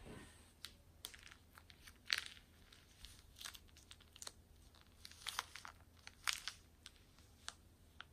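Clear plastic piping bag packed with polystyrene foam beads crinkling and crackling as it is squeezed to push the beads out, in irregular sharp snaps with the loudest about two seconds in and again about six seconds in.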